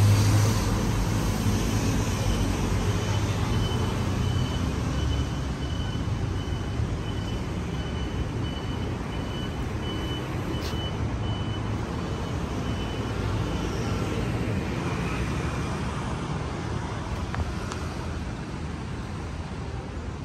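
City street traffic: a vehicle engine rumbling close by at the start, fading after about five seconds, over a steady hum of passing traffic.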